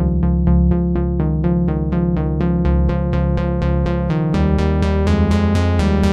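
Background electronic music: quick, evenly repeated synthesizer keyboard notes over a steady bass line.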